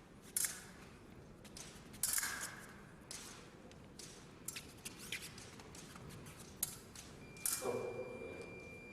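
Épée blades and fencers' footwork on the piste, giving about seven sharp metallic clicks and taps spread out irregularly, with a louder clash about seven and a half seconds in. A thin steady high tone comes in near the end and holds.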